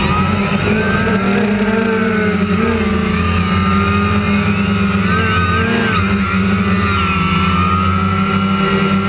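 Drone's electric motors and propellers whining steadily and close, heard from the camera it carries; the pitch drifts up and down as the craft manoeuvres, wavering most around the middle.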